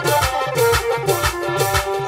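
Upbeat dance music with a deep kick drum about twice a second, each beat dropping in pitch, under a sustained melody.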